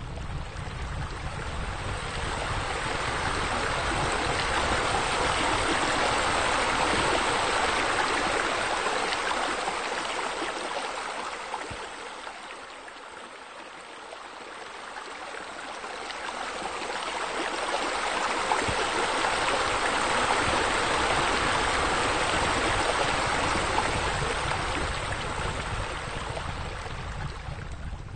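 Running, spilling water from pool water features, a steady rushing hiss that swells louder and fades away twice, quietest about halfway through.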